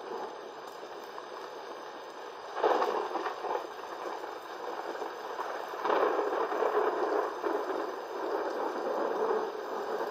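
Storm wind gusting through palm trees, a steady rushing that swells in two strong gusts, about two and a half seconds in and again about six seconds in.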